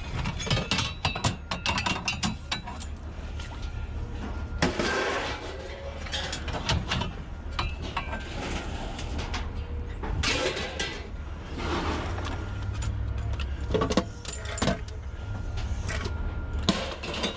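Scrap metal being handled and pulled apart: irregular clinks, rattles and knocks of metal parts, over a steady low hum.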